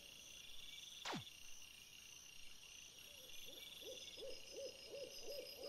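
Faint night-ambience soundscape: a rapid series of short owl hoots begins about three seconds in, over a steady high chirring like night insects. About a second in, one quick whistle falls steeply in pitch.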